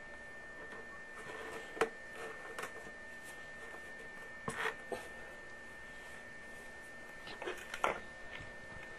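A few light knocks and rubbing of PVC pipe as a gloved hand works the sump pump's discharge pipe at the check valve, with clusters of clicks about two seconds in, around the middle and near the end. A steady faint high tone runs underneath.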